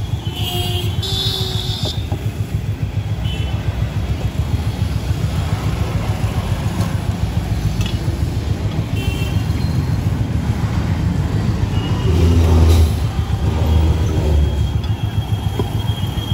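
Steady low rumble of a vehicle travelling on the road, swelling louder about twelve seconds in and again near fourteen seconds.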